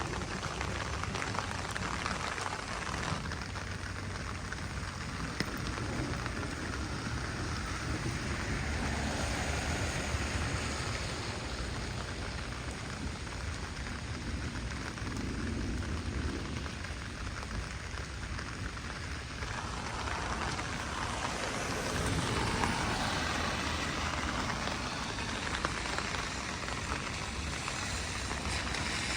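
Heavy rain pouring steadily, with a low rumble underneath that swells and eases.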